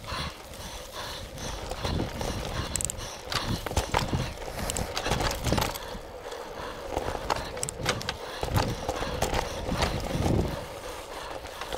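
Mountain bike rolling along a dirt singletrack: a low rumble from the tyres with frequent irregular knocks and rattles from the bike jolting over bumps.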